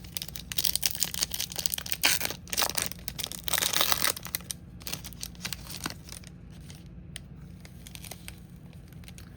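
A trading card pack wrapper being torn open and crinkled for about three and a half seconds, loudest just before it stops, followed by a few light rustles and clicks.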